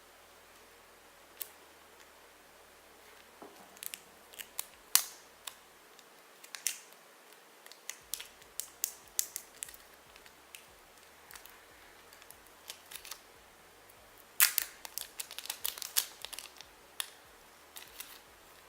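Plastic wrap being picked at and peeled off a small charger box: scattered sharp crackles and clicks, coming in bunches, busiest about fifteen seconds in.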